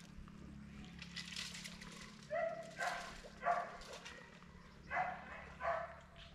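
A dog barking, a series of short barks mostly in pairs, starting about two seconds in, over a steady low hum.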